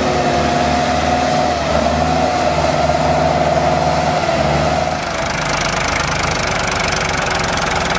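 Tractor engines running hard while the tyres spin in deep mud, with a steady engine note that wavers in pitch. About five seconds in the sound switches abruptly to a different tractor engine.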